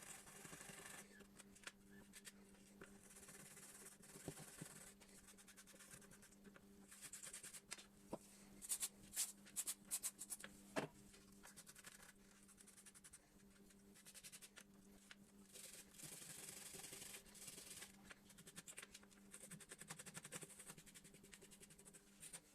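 Faint hand rubbing and scraping on a bicycle part, in repeated strokes, with a handful of sharp clicks about halfway through, over a low steady hum.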